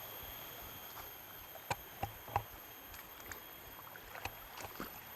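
Faint flowing river water, with a few scattered light clicks and taps over it.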